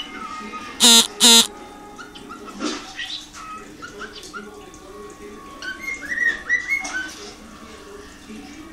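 White-faced cockatiel calling and whistling: two loud harsh calls about a second in, then a series of short, rising whistled notes that are most frequent around two-thirds of the way through.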